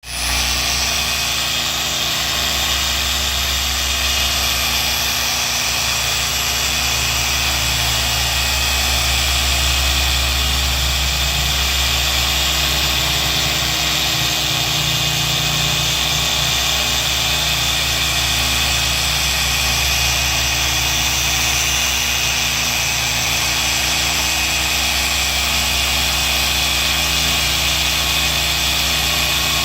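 Power sander running steadily, sanding with a 3000-grit Trizact abrasive to take off oxidation: an even motor hum with several steady tones.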